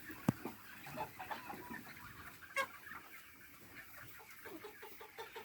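Aseel cross chickens clucking in short, repeated calls, with two sharp clicks, one just after the start and one about two and a half seconds in.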